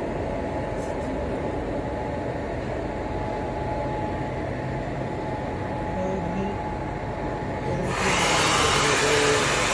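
Electric freight locomotive, converted from two WDG diesel locomotives, rolling slowly past at close range: a steady rumble of the locomotive and its wheels on the rails, with a faint steady hum. About eight seconds in, a loud rushing hiss starts suddenly as its end passes.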